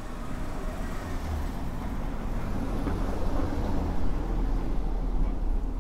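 Small car driving slowly past on a cobblestone street, its engine and tyre rumble growing louder and loudest about four seconds in.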